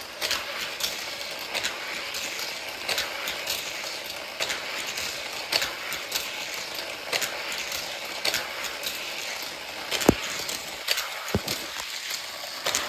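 Motorized Metal Machines Construction Destruction toy track set running with a steady whir, and plastic clicking and clattering of toy cars on the track. A sharp clack comes about ten seconds in, with another soon after.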